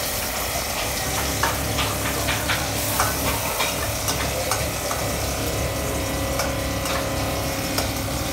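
Hot oil sizzling steadily in a wok as ingredients fry, with a spatula stirring and knocking against the pan many times.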